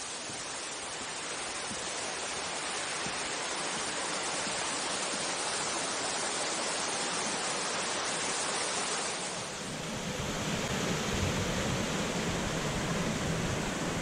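Rushing water of a mountain stream and small waterfall, a steady hiss that grows louder over the first several seconds. About nine and a half seconds in it gives way to a deeper, fuller rush of the stream with more low rumble.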